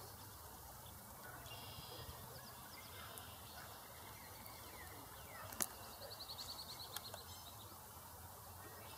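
Faint high-pitched bird calls over quiet outdoor background noise: scattered short peeps, then a rapid trill of about ten notes a second about six seconds in. A single sharp click, just before the trill, is the loudest sound.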